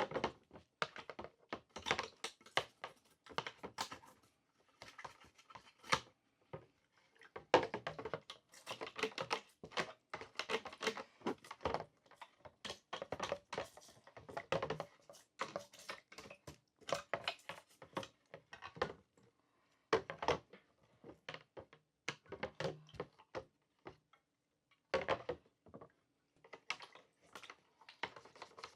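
Small parts of a 1:18 scale model car being handled by hand: quick irregular clicks, taps and light knocks in clusters, with short pauses between them.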